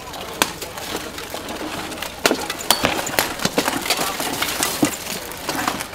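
Armoured fighters clashing in a 5v5 buhurt melee: rapid, irregular metallic impacts of weapons striking steel armour and shields, growing denser and louder after about two seconds.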